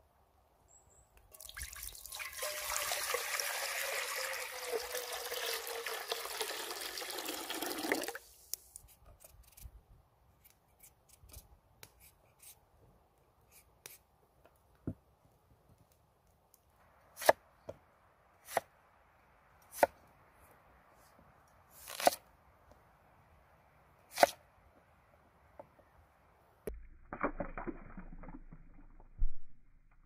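Water poured into a cast iron Dutch oven for about six seconds, with a note in the pour that slowly falls in pitch. Later come about five sharp splashing impacts a second or two apart, as peeled potatoes go into the water, and a short burst of pouring near the end.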